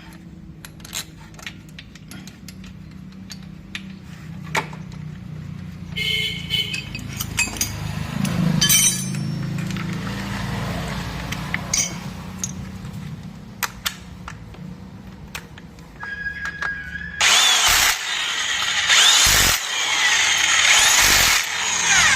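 Tools clicking and clanking on metal while an AC compressor is bolted into place, over a steady low hum. About three-quarters of the way in, a much louder, harsh noise starts suddenly and takes over.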